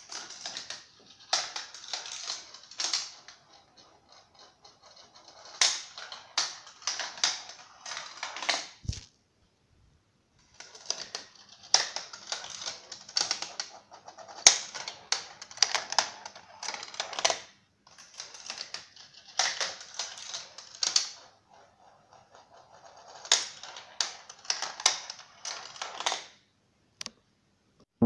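Marbles rolling and clattering through a GraviTrax plastic marble run, with quick clicks as they drop onto and strike the track pieces. The rattling comes in three long stretches separated by short pauses, and a single click sounds near the end.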